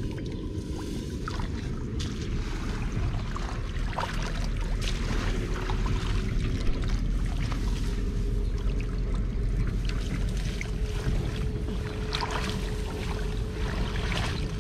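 Water sloshing and splashing over a steady low rumble, with scattered short splashes and knocks.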